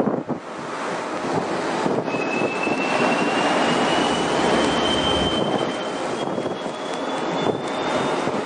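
Strong wind rushing over the microphone aboard a destroyer under way at sea. From about two seconds in, a faint thin whistle slowly rises in pitch.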